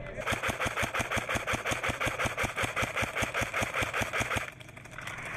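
Airsoft electric AK rifle (CYMA CM028 AEG) firing one long full-auto burst of about four seconds: a rapid, even string of shots that stops suddenly.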